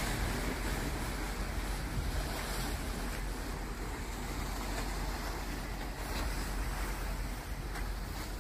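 Steady wind on the microphone over the wash of the open sea: an even rushing hiss with a low rumble underneath, no distinct engine note.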